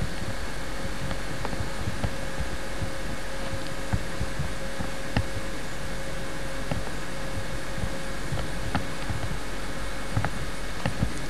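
Steady hiss with a faint hum, broken by irregular soft thumps and clicks about every half second to second: handling noise from a camcorder carried by someone walking through a grass field.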